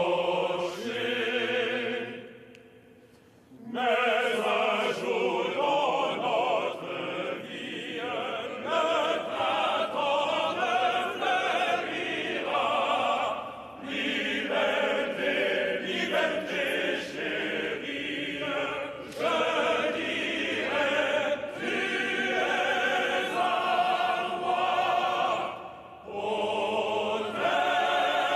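Classical singing in long held phrases with vibrato, broken by short pauses about 2, 13 and 26 seconds in.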